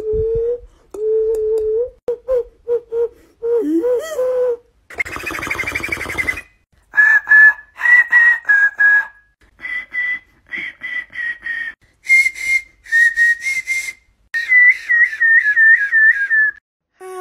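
Beatboxer's mouth whistles: a low hollow whistle, held and then broken into short notes, for the first four seconds or so. Then a breathy hiss, then a run of short, higher whistled notes made in the throat. It ends in a fast warbling trill.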